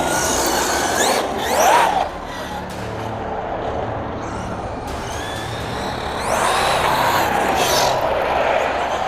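Arrma Big Rock 6S BLX RC monster truck's brushless electric motor whining under a steady noisy rush. The whine rises in pitch about a second in, then rises and falls again from about six to eight seconds in as the truck accelerates and lets off.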